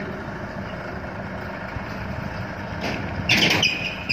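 Forklift engine running steadily as it tows a wheeled cement silo. A little over three seconds in there is a short loud burst of noise, then a high squeal.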